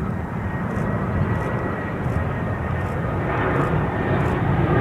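Jet airliner's engines on approach: a steady rumble, with a whine coming in about three seconds in.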